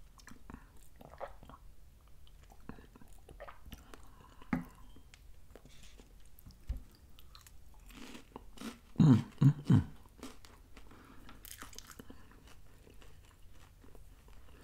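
Close-miked chewing of Voortman sugar-free lemon wafer cookies: soft crunches and mouth clicks, with three louder sounds close together about nine seconds in. The wafers are slightly stale, so little crunch is left.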